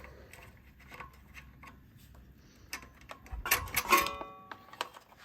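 Light metallic clicks and taps of hand tools working loose a minibike's handlebar throttle. A louder metal clink that rings briefly comes about four seconds in.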